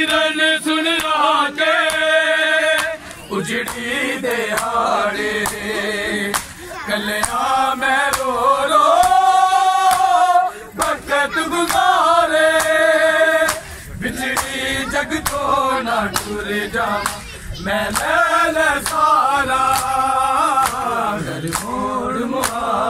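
A crowd of men chanting a Punjabi noha, a Muharram lament, in unison, led by reciters. A steady beat of sharp slaps runs under the chanting: hands striking bare chests in matam.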